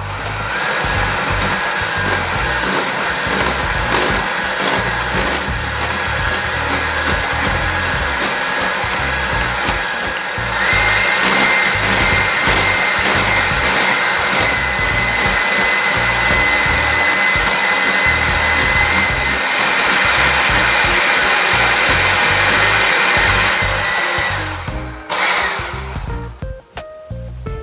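Electric hand mixer whipping heavy cream in a glass bowl, its motor running with a steady whine. About ten seconds in the whine steps up to a higher pitch, and the mixer stops near the end.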